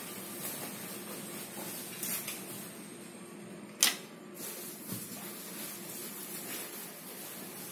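Light clatter of things being handled on a counter over a steady low hum, with one sharp clack about four seconds in.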